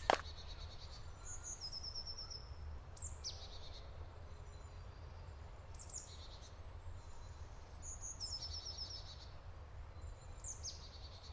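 A songbird singing faintly in short phrases every few seconds, each a quick high downward sweep followed by a fast run of repeated notes, over a low steady rumble.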